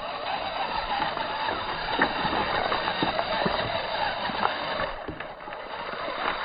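RC rock crawler's motor and drivetrain whining steadily as it crawls over loose river stones, with scattered knocks from its tyres and chassis striking the rocks, over a continuous rushing noise.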